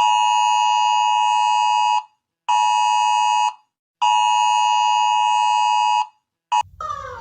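Emergency alert attention tone: a loud, steady two-note electronic tone sounded in three blasts, long, short and long, with a brief blip after them. A falling, siren-like wail starts near the end.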